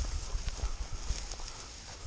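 Footsteps tramping through tall dry grass, soft uneven thuds with the swish of stalks against the legs, picked up by a body-worn camera.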